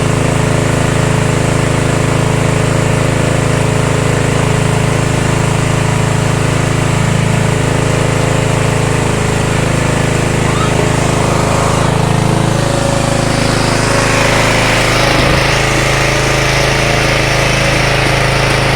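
Small 7 hp petrol engine running steadily under load, driving an organic-waste pulverizer and pellet machine. About two thirds of the way through, a harsher, hissing machine noise grows louder on top of the engine.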